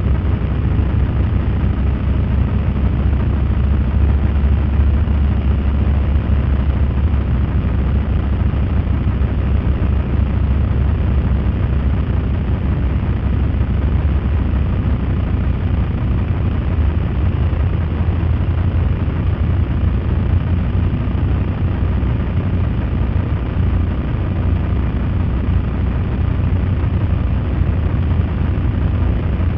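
Steady low rumble of motorcycles cruising slowly in a group, mixed with wind noise on a microphone riding along with them.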